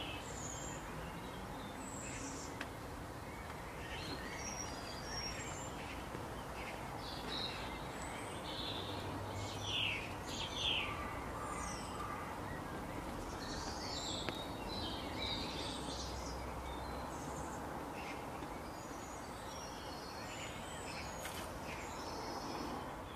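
Wild birds chirping on and off over a steady outdoor background hiss, with a louder run of chirps about halfway through.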